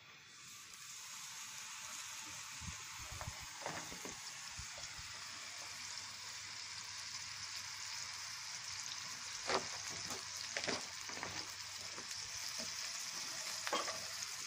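Bacon-wrapped burger patties frying: a sizzle that starts as they go in and settles into a steady hiss, with a few louder crackles of spitting fat.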